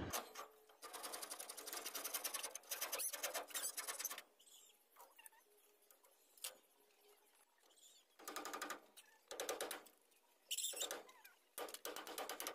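A bolo knife shaving a small piece of wood in rapid scraping strokes. There is a long run of strokes in the first four seconds, then several shorter bursts near the end.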